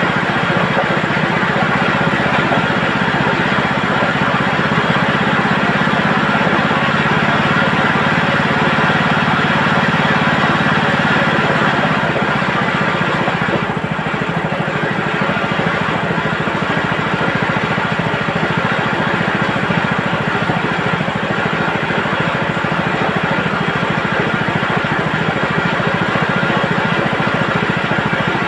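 Motor-driven chicken plucking machine running steadily. A low hum in the mix drops away about twelve seconds in, and the machine keeps running.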